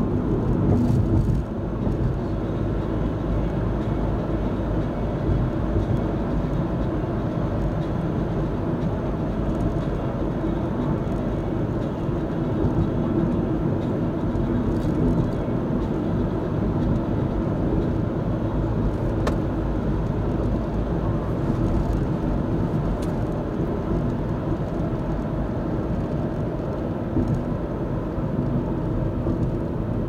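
Steady engine and tyre noise of a car driving along the road, heard from inside the car, easing slightly about a second and a half in.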